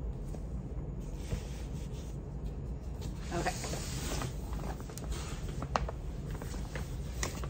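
A reusable tote bag rustling as it is lifted and moved, with a few light clicks and knocks of handling, over a steady low hum.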